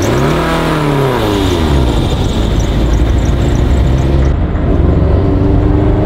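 Turbocharged Scion FR-S's flat-four engine revving up and back down over the first two seconds, then running at steady revs while driving.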